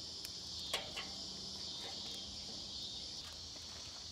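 Steady high chirring of insects, with a couple of light clicks a little under a second in as metal tongs set wood chunks onto the hot charcoal in a kettle grill.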